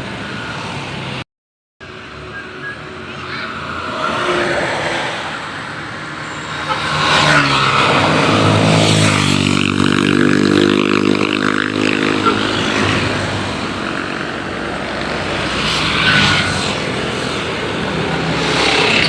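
Tour bus engine accelerating past, its pitch climbing about seven seconds in and holding high for a few seconds before easing off, with people's voices around it.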